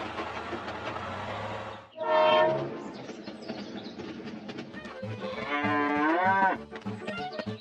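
A cow mooing twice: a short loud moo about two seconds in and a longer moo that bends in pitch near the end. Under it runs a steady mechanical noise and low, regular thumping.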